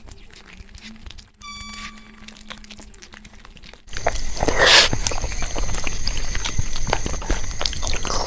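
Close-miked eating sounds: chewing and wet mouth noises with small clicks, getting louder about four seconds in, with one sudden loud crunch about a second later.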